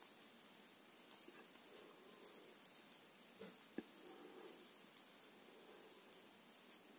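Near silence with faint, irregular clicks and rustles of knitting needles working wool yarn.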